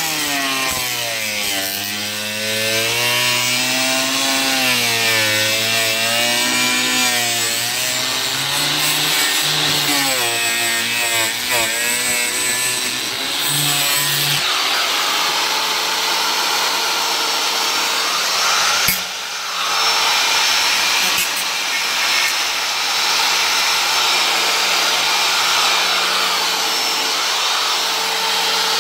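Power saw cutting through the camper's FRP roof panel, its motor pitch rising and falling as it loads up in the cut, then running at a steady pitch for the second half, with a brief stop about 19 seconds in.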